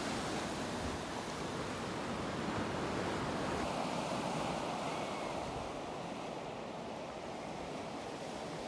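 Steady rush of ocean surf, with wind on the microphone, easing slightly near the end.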